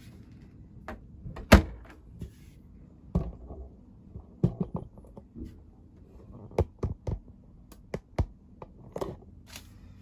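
Door of a Beko condenser tumble dryer pushed shut with a thunk about a second and a half in. A scatter of smaller clicks and knocks follows.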